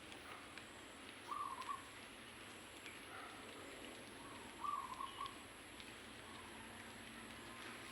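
A bird calling twice, each call a short quick run of notes, about three seconds apart, over faint background hiss.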